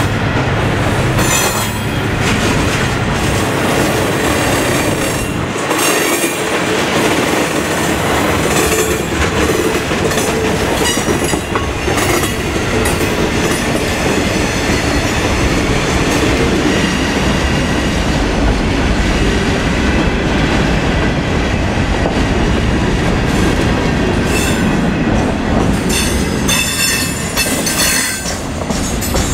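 Freight cars (covered hoppers and gondolas) rolling past, their steel wheels clicking over the rail joints in a steady loud rumble, with a high wheel squeal near the end.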